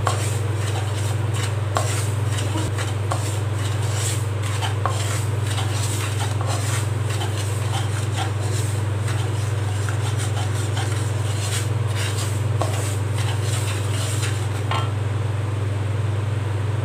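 Wooden spatula stirring and scraping dry semolina around a nonstick kadai as it is dry-roasted: a run of soft grainy scrapes and light taps, over a steady low hum.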